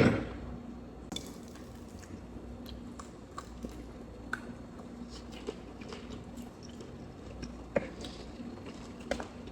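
A person chewing and biting fried chicken close to the microphone: soft, scattered wet clicks and smacks, with one sharper click about eight seconds in.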